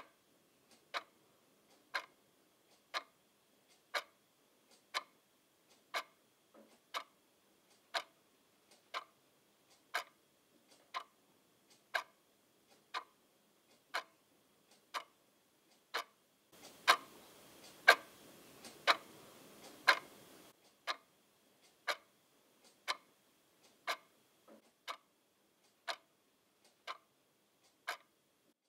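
Clock ticking steadily, about once a second. For about four seconds in the middle the ticks turn much louder over a steady rushing noise, then drop back.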